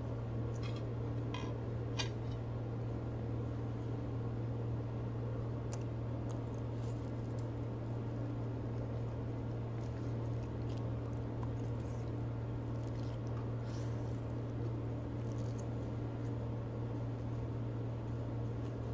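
Close-up mouth sounds of a person eating spaghetti: chewing and slurping noodles, with scattered short wet smacks and clicks over a steady low hum.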